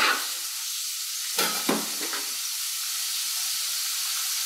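Chopped onion sizzling steadily in hot olive oil in a saucepan, with two quick knife scrapes on a cutting board about a second and a half in.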